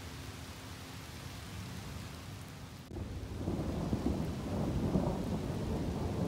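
Steady rain, then about halfway through a rumble of thunder sets in and builds, peaking a couple of seconds later.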